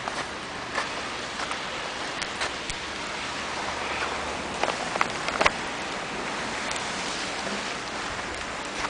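Steady hiss of blizzard wind, with a few faint scattered ticks.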